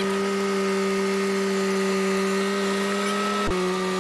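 Tracked skid-steer loader's diesel engine running at steady high throttle, a steady pitched drone. About three and a half seconds in it dips briefly with a low thump, then runs on at a slightly lower pitch.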